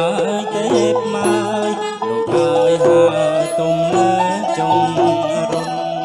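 Cambodian traditional folk music played live: a wavering melody over a hand drum, with a man singing into a microphone.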